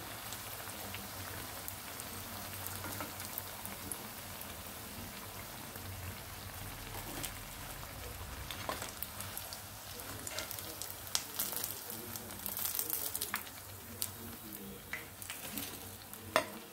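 Hot oil sizzling steadily around crumbed potato-and-poha bites frying in a pan. A metal slotted spoon gives scattered light clicks and scrapes against the pan, more of them in the second half, as the fried pieces are lifted out.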